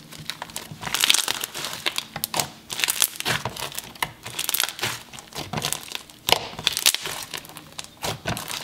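Hands kneading and pressing a thick cloud cream slime mixed with packing peanuts and jumbo foam beads. It gives a dense, irregular run of small crackles and pops.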